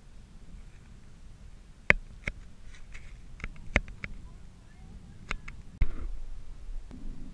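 Several sharp, separate clicks and knocks from an action camera's housing being handled and turned around, over a faint low wind rumble.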